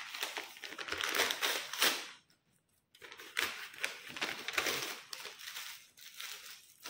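Paper packaging crinkling and rustling as a paper parcel mailer is handled and opened, in irregular bursts that stop briefly about two seconds in.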